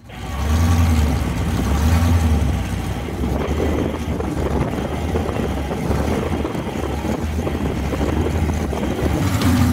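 Several monster truck engines idling together: a low, uneven rumble that swells and eases a few times, fading in at the start.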